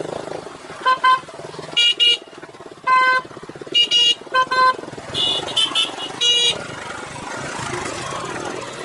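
Vehicle horns honking in a run of short beeps, about a dozen toots over five seconds, with a second, higher-pitched horn joining near the end. A motorcycle engine runs underneath.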